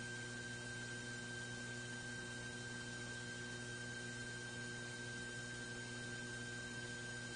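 Steady electrical hum and hiss with a thin high whine over it, unchanging, with no other sound.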